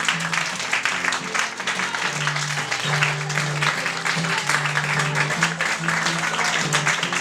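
Audience applauding over music with a line of held low notes.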